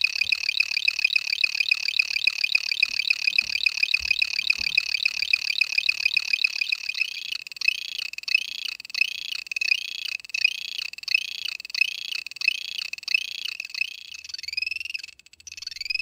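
Piezo buzzer driven by a 4046 VCO chopped by a NAND-gate clock, sounding a high chopped tone. It pulses rapidly at first, then about seven seconds in slows into separate chirps about two a second, each rising and falling in pitch.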